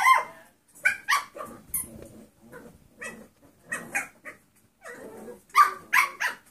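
Young puppies barking: a string of about ten short barks at uneven spacing.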